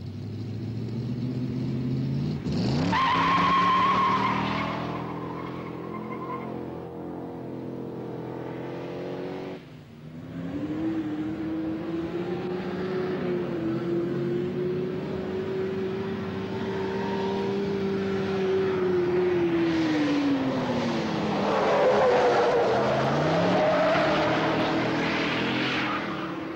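1970 Ford Falcon GT's 351 cubic inch V8 driven hard: the engine revs up, holds at high revs for a long stretch, then drops away. Tyres squeal a little after two seconds and again through the last several seconds as the rear wheels spin and smoke.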